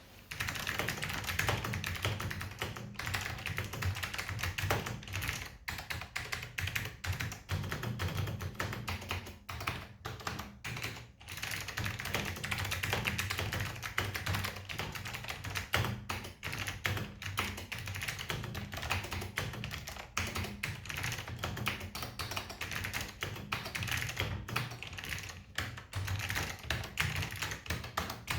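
Steady typing on a 1988 DMC Focus FK-2001 mechanical keyboard with lubed, clicky Alps white switches: a fast run of sharp key clicks with a few short pauses.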